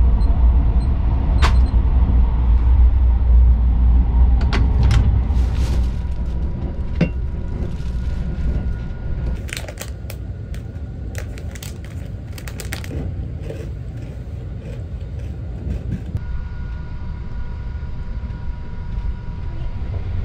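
Steady low rumble of the Sunrise Seto (285 series) sleeper train running, heard inside the compartment, easing off a little about nine seconds in. Over it are a few faint beeps near the start from a door code keypad, scattered clicks, and a spell of crinkling from a plastic snack bag being handled in the middle.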